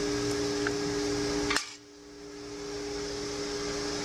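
Steady workshop background hum, like a fan or air handler, with two fixed pitches over a hiss. About a second and a half in there is a single click, and the whole sound drops away and fades back up over the next second, as at an edit cut.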